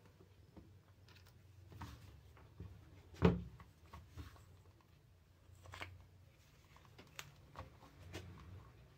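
Parts of a rotary hammer drill's tool holder handled and fitted together by hand: faint scattered clicks and rustles of metal and rubber parts, with one sharper knock about three seconds in.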